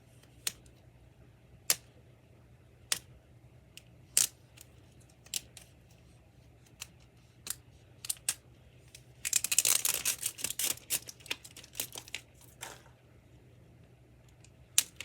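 Plastic wrapping being peeled off a toy capsule: scattered sharp crackles, then a dense run of crinkling and tearing from about nine to thirteen seconds in.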